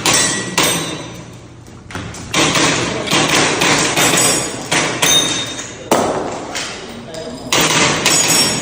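Gas blowback airsoft pistol, a Tokyo Marui Glock 17 Gen4, firing a string of shots at uneven intervals. Each shot is a sharp crack with a short echoing tail. Thin metallic ringing around the middle fits BBs striking steel targets.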